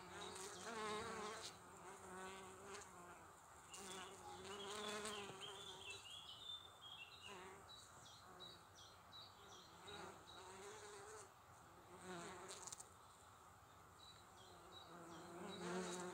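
Honeybees buzzing at the entrance slot of a log hive, several bees flying close past in turn so the wavering hum swells and fades again.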